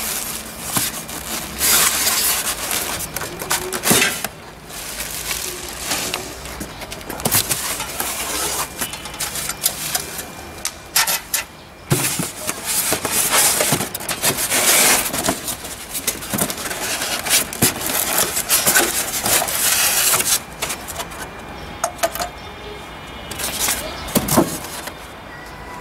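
Plastic wrapping crinkling and polystyrene foam packing blocks rustling and rubbing as they are pulled off a small machine by hand, in irregular bursts with a few knocks.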